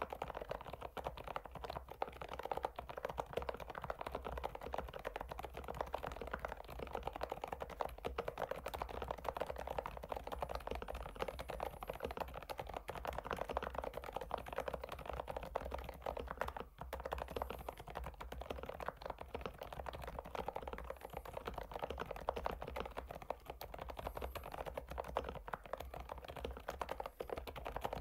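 Continuous typing on an FL-Esports OG-series retro mechanical keyboard: a dense, steady run of key clacks with one brief lull partway through.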